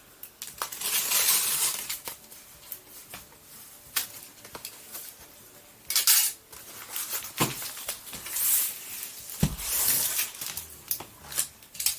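Adhesive tape being peeled off packaging, in several scratchy pulls, with a few sharp knocks as the box is handled.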